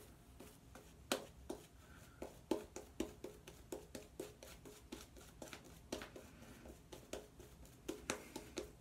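Shaving brush working soap lather onto the face: a run of short, soft wet strokes at about four a second, building lather for the second pass of a wet shave.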